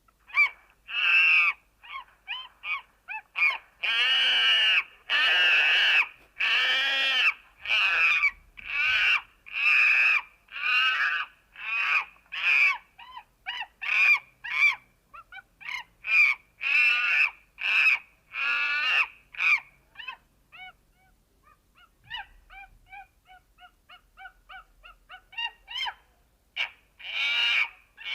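Monkey calling: a long series of loud, high-pitched calls in quick succession, some drawn out for about a second. About twenty seconds in they give way to short, quieter calls, with one loud call again near the end.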